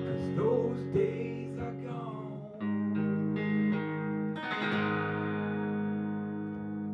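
Guitar music at the end of a song: picked notes, then two chords struck about two seconds apart and left ringing out.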